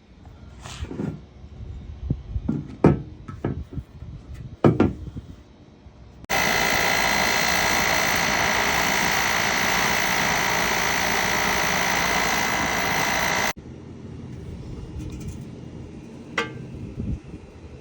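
Compressed air hissing into a dented two-stroke expansion chamber to pressurise it and push the dents out: a loud, steady hiss with a whistling tone that starts suddenly and cuts off after about seven seconds. A few knocks and clicks come before it.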